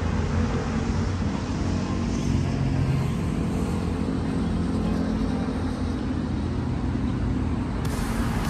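Steady drone of road traffic, a low engine rumble with no single vehicle standing out.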